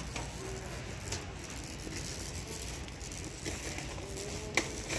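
Warehouse store background: a steady low hum with faint distant voices, and a single sharp click near the end.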